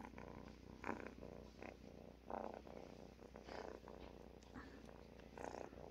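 Tabby-and-white kitten purring steadily right against the microphone, with a few brief soft noises over the purr.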